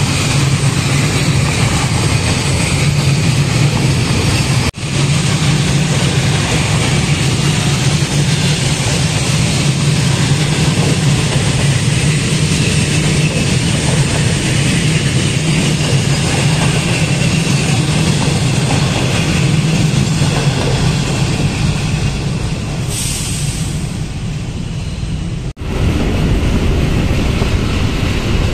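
Freight train's loaded open-top wagons rolling past close by: a steady, loud rumble and clatter of steel wheels on the rails. It is broken twice by brief cuts, and after the second cut, near the end, the train is heard from farther off.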